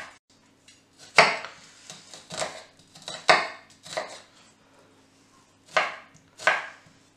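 Kitchen knife chopping a garlic clove on a wooden chopping board: sharp, uneven knocks of the blade against the wood, with a pause of nearly two seconds about two-thirds of the way through.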